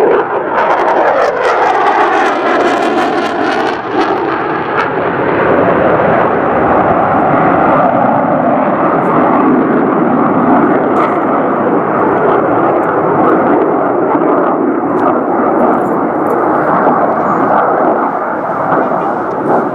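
Twin General Electric F414 turbofans of an F/A-18F Super Hornet jet fighter, a loud, steady jet roar as it flies past. In the first few seconds the roar has a sweeping, phasing quality as the jet passes.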